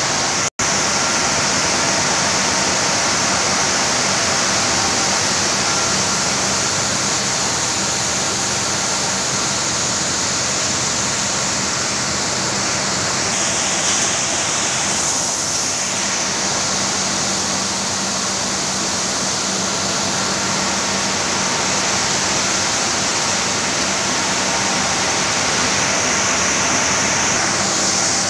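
Rice milling unit machinery running steadily: a continuous loud rushing noise with a faint low hum underneath. The sound drops out for an instant about half a second in.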